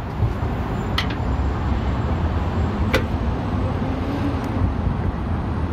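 Steady low rumble, with two sharp clicks about two seconds apart as the end fitting of a new hood lift strut is worked onto its ball stud.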